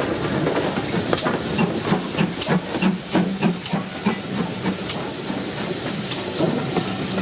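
GWR Manor-class 4-6-0 steam locomotive 7820 Dinmore Manor approaching with its train: steam hissing, and a run of sharp clicks from the wheels on the rails, with a low hum that comes and goes.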